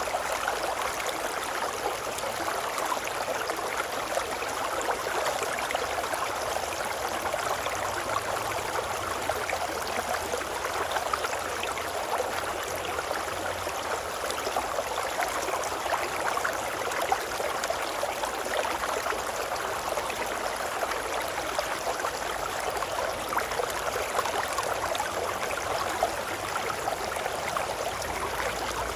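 Running water of a babbling brook: a steady, even rush of water with no pauses.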